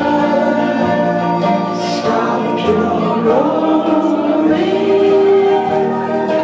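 Loud music playing through a speaker with a group of voices singing along together in held, sustained notes.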